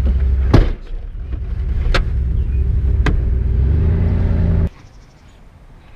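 Truck engine running, with a loud thump of a vehicle door shutting about half a second in and a few lighter clicks after. The engine note climbs near the end as the truck pulls away, then the sound cuts off abruptly.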